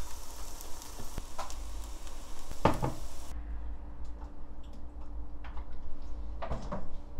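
Mung bean pancake frying in oil in a nonstick pan: a steady sizzle that cuts off suddenly about three seconds in. After that only a low hum and a few light clicks remain.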